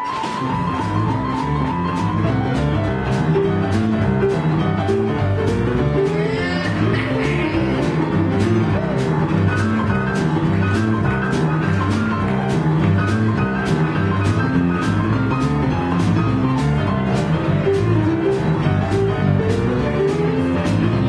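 Live blues band playing a boogie-woogie on stage piano, electric guitar, bass guitar and drum kit. The full band comes in right at the start, with the drums keeping a steady beat under the piano.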